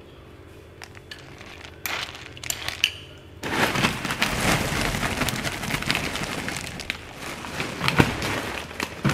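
Dry dog kibble rattling and crackling against a bowl as it is handled: a few scattered clicks, then from about three and a half seconds in a dense, continuous run of small clicks and crackles.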